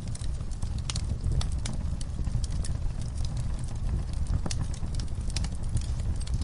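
Wood fire burning in a fireplace, crackling and popping in irregular sharp snaps over a steady low rumble.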